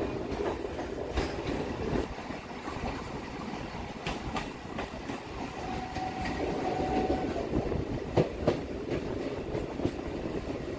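Electric local train running on the track, heard from on board: a steady rumble with clacks over rail joints every second or few, and a faint thin whine for a couple of seconds midway.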